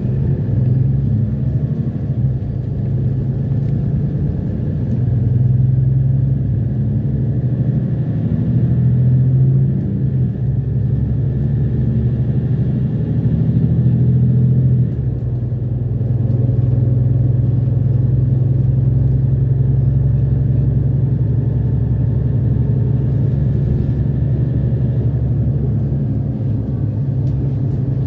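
City bus running, heard from inside the passenger cabin: a low engine and road rumble, swelling and easing several times in the first half, then steady from about halfway through.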